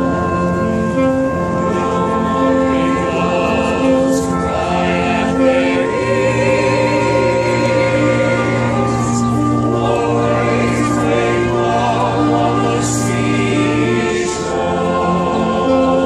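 Choir singing sustained chords with a brass band, sousaphone, saxophones and trumpets, playing along. A long low note is held from about six to fourteen seconds in.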